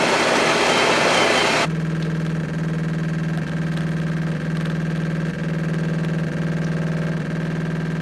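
Jura E8 super-automatic espresso machine: its built-in grinder grinds the beans loudly and stops about two seconds in. Then the brewing pump hums steadily as the espresso pours, with a slight pulse about once a second from the machine's pulse extraction process.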